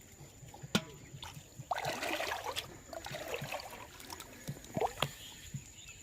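Shallow water splashing and trickling as a fishing net is handled in flooded rice-field water, with a sharp knock a little under a second in and the loudest splashing around two to three seconds in.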